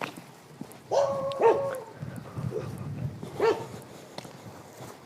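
Village dogs barking: a drawn-out bark about a second in, then a single short bark about halfway through.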